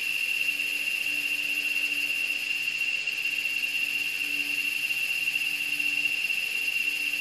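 A steady high-pitched whistle-like tone, held unchanged, over a constant hiss.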